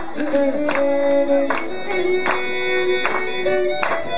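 Irish traditional dance music played live: a melody of long held notes over a steady beat that recurs about every three-quarters of a second.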